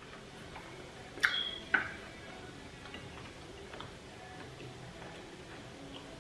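Two light clinks of cutlery against a dish, about half a second apart a little over a second in, each with a short ring.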